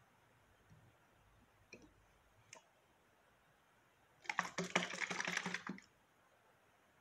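Plastic trigger spray bottle of water being handled: a few faint clicks, then about a second and a half of rapid clicking and rattling about four seconds in.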